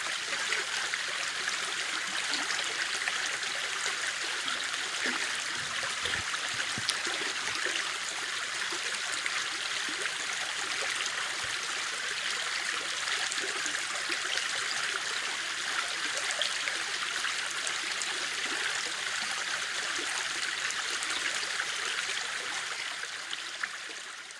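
River water flowing steadily over rocks, an even rushing with small splashes in it, fading out near the end.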